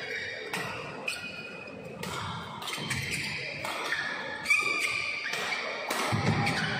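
Badminton rally: sharp racket strikes on a shuttlecock every second or so, with shoes squeaking on the court.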